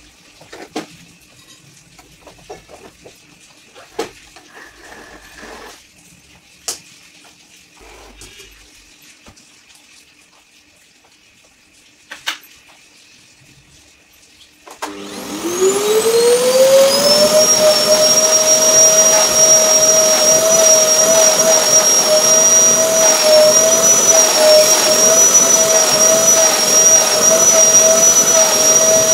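A few clicks and knocks, then a canister vacuum cleaner is switched on about halfway through. Its motor whines up to speed over a second or two, then runs loud and steady with a high whine.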